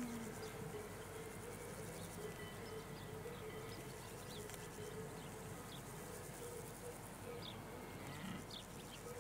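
Faint outdoor field ambience: a steady insect buzz with scattered short high chirps.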